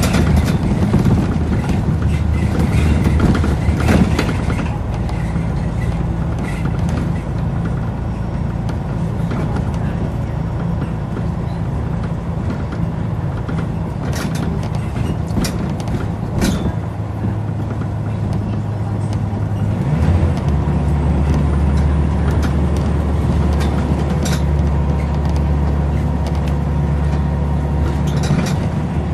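Scania L94UB bus's nine-litre five-cylinder diesel engine running on the move, a steady low drone that changes and deepens about twenty seconds in. A few sharp clicks or knocks come in the middle.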